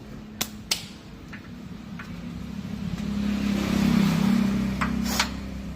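A motor vehicle engine swelling to its loudest about four seconds in and then easing off, with a few sharp metal clinks from work on the bench.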